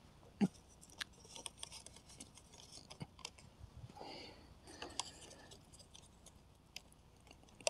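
Faint clicks, taps and short scrapes of thin wooden sticks being handled and pressed into a stacked stick cage trap, with a sharper knock about half a second in.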